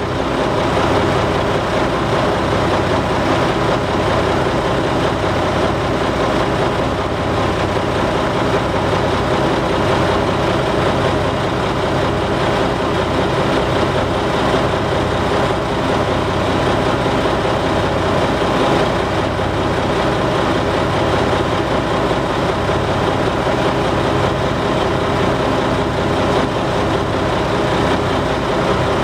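Heavy diesel engine idling steadily at close range, a constant low engine hum and rattle with no revving or change.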